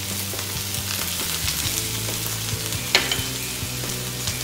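Sliced mushrooms and onions sizzling in olive oil in a hot frying pan as they are kept moving, the sizzle being the water cooking out of the mushrooms. A sharp knock of the pan or utensil about three seconds in.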